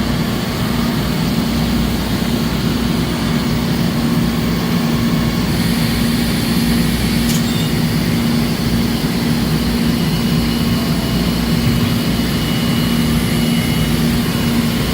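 Traub TNL 26 CNC Swiss-type lathe running, a steady mechanical hum with a constant low tone under a broad hiss; a faint thin high whine joins about ten seconds in.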